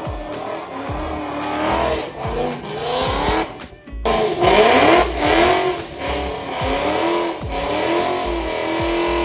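A car engine revving hard again and again, its pitch rising and falling, with tire squeal, typical of a burnout. There is an abrupt cut about four seconds in.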